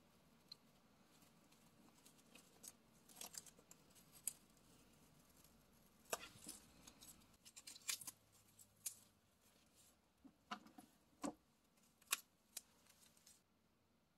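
Masking tape being peeled off the edge of a paper page: faint, irregular crackling and sharp ticks in clusters, stopping near the end.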